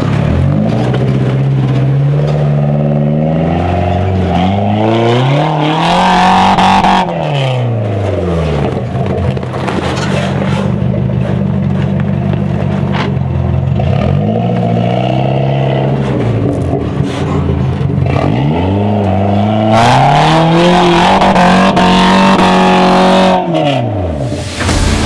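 Off-road vehicle's engine running with a steady idle, revved hard and let back down about three times, each rev rising and falling in pitch.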